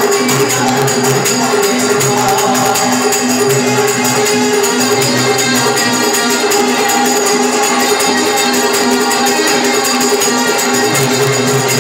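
Live Indian devotional folk music: harmonium and keyboard hold steady chords over a continuous beat of jingling hand percussion.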